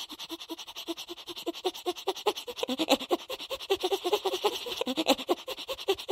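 Chicken wings flapping fast as a sound effect: an even fluttering of about ten beats a second, with short pitched squeaky notes among the beats. It stops just before the end.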